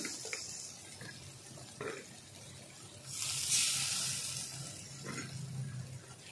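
Watery broth of coconut water and tamarind sizzling and hissing in a hot kadai. The hiss fades in the first second and swells again about three seconds in, with a few faint knocks.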